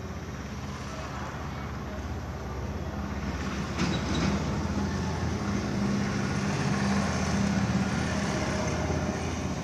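A vehicle engine running with a steady low hum that grows louder through the middle and eases off near the end, with one brief click about four seconds in.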